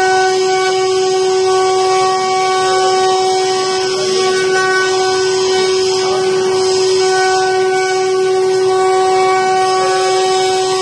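High-speed electric spindle of a 5-axis CNC wood carving machine running with a steady high whine, its bit cutting into a wooden workpiece with a hiss of cutting over it.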